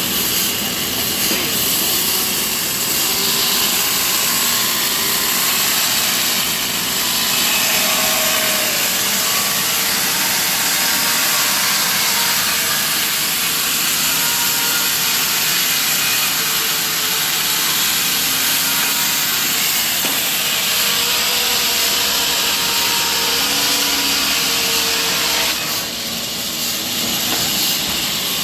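Sawmill saw running steadily while cutting a siris log on its trolley carriage into one-inch planks, a loud continuous hiss of blade through wood that eases slightly near the end.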